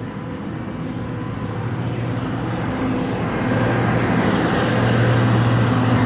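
A motor vehicle's engine running, a steady low hum that grows gradually louder as it approaches.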